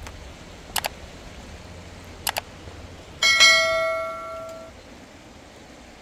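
Two quick double clicks, then a single sharp metallic strike a little past halfway that rings with several bell-like tones and dies away over about a second and a half, over a steady rushing background.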